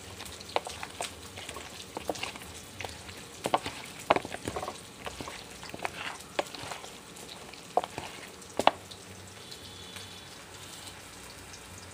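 A hand squeezing and turning raw chicken pieces with ground spices and onion in a plastic bowl: irregular wet squishes and short clicks.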